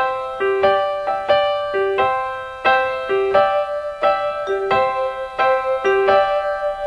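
Keyboard music with an electric piano sound playing a gentle melody, single notes struck about two or three times a second, each ringing on. It starts suddenly out of silence.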